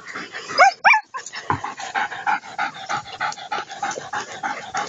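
German Shepherd puppies at play: two short high yips about half a second in, then a long run of rapid, high whimpering.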